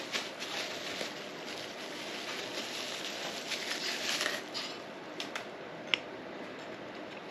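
Metal pipe pieces of a coat rack being handled and screwed together by hand: a continuous scraping and rustling with a few light clicks, the sharpest about six seconds in.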